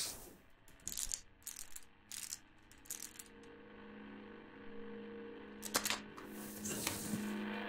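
Crinkles and clicks of a foil blister pack of pills being handled: a quick run of sharp crackles in the first few seconds and two more near the end. A low, steady hum builds underneath from a few seconds in.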